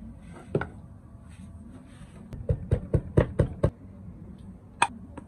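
A fast run of about seven sharp knocks lasting just over a second, with a single sharper click near the end: a kitchen knife's tip being tapped and driven into the lid of a tin can to punch it open.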